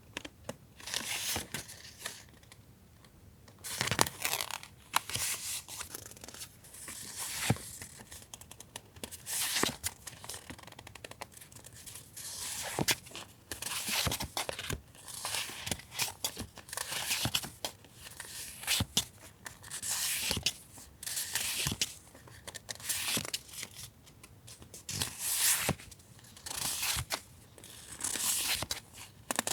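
Paper and plastic stationery packaging being handled close up, in repeated short bursts of rustling, crinkling and tearing, with a few light taps.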